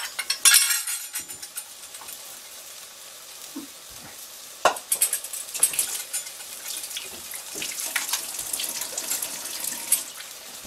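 Water running from a kitchen tap into a sink while dishes and utensils clink and clatter in it, with sharp knocks about half a second in, near five seconds and near ten seconds.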